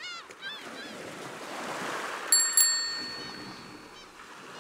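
Intro sound effects: a few bird chirps and a swelling rush like surf, then a bicycle bell rung twice in quick succession, its ring fading away.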